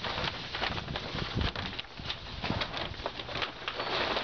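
A large plastic tarp rustling and crackling as it is unfolded and shaken out by hand, in many quick, irregular crinkles.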